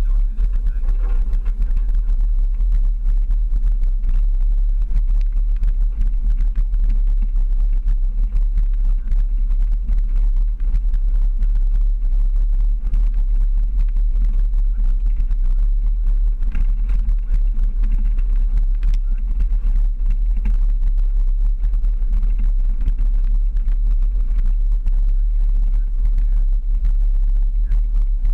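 Jeep driving up a rough dirt and gravel trail, heard from outside on the hood: a steady low rumble of the engine and tires, with continuous crackle and buffeting on the microphone.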